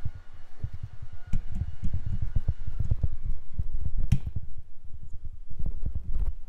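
Handling noise from the camera being picked up and carried: a fast, irregular run of dull low thumps and knocks on the microphone, with one sharper click about four seconds in.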